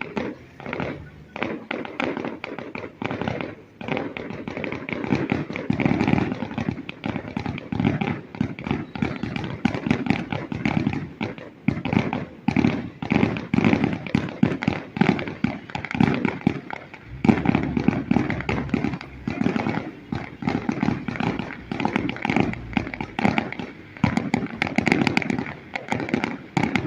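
Fireworks going off in a dense, continuous barrage of bangs and crackles, with hardly a pause between reports.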